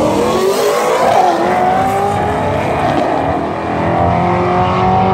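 Corvette Z06's V8 and a second drag car accelerating hard at full throttle down the strip. The engine note climbs in pitch and drops back at an upshift twice, about a second in and again about three and a half seconds in.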